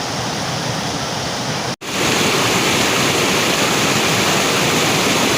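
A waterfall, about 20 m high, rushing steadily. About two seconds in, the sound cuts out for an instant and then returns a little louder.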